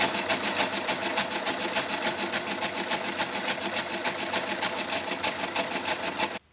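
Sewing machine running a zigzag stitch around the edge of a cotton canvas circle to stop it fraying: a fast, even clatter of needle strokes that cuts off sharply near the end.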